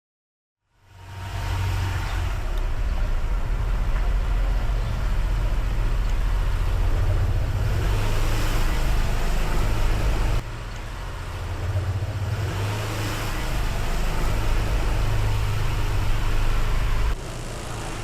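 Riding noise from a Honda ADV 160 scooter on the move: a steady low rumble under wind rushing over the microphone, which swells and fades every few seconds. It fades in after a moment of silence and drops suddenly about ten seconds in and again near the end.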